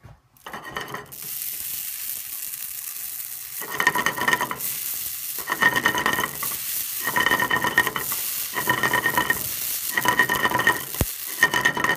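Amaranth grain popping and crackling in a hot, dry steel frying pan over a gas burner, a steady fizzing crackle. From about four seconds in the pan is shaken in about six bursts, each with a metallic scrape.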